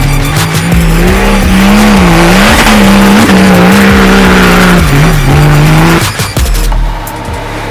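Off-road 4x4's engine revving hard, its pitch climbing and falling over several seconds. It drops away about six seconds in.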